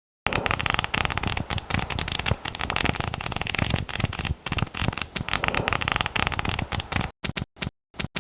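Pages of a paper flipbook riffling rapidly under the thumb: a dense, fast run of paper flicks that breaks off near the end into a few short, separate flips.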